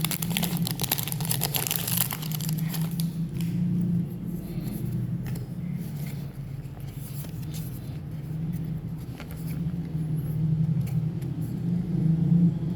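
Foil Pokémon card booster pack being torn and crinkled for the first few seconds, then only scattered light rustles and clicks. A steady low hum runs underneath.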